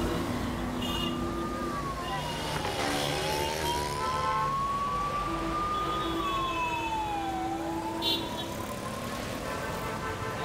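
A siren wailing slowly up and down, twice over, each rise slow and each fall quicker, over steady street traffic with a few short horn honks.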